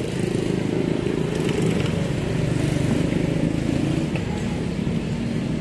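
Steady low rumble of road traffic and running vehicle engines, with a few faint clicks.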